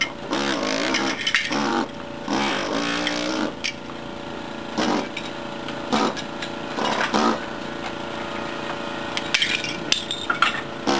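Gison GPW-4500 pneumatic air hammer with a flat chisel running continuously as it chips ceramic tiles off a wall. Its buzz wavers in pitch as it is pressed against the tile, with a few louder bursts and sharp clicks of breaking tile near the end.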